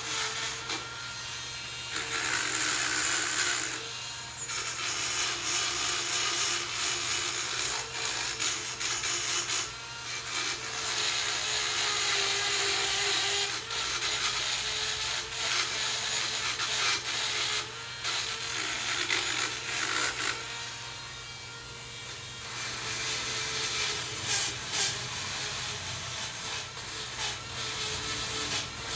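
Dremel rotary tool running at high speed with a steady whine, its bit grinding corrosion off the brake caliper bracket where the pad clips sit. The scraping rises and falls as the bit is worked over the metal, easing briefly about two-thirds of the way through.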